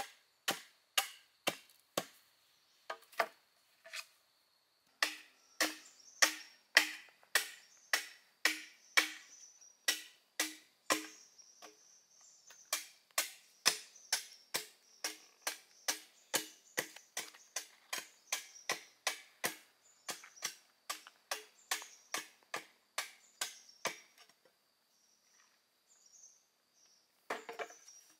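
A blade chopping bamboo in a steady run of sharp strikes, about two a second, each with a short hollow ring. The chopping pauses briefly a few times and stops about four seconds before the end, followed by a few softer knocks.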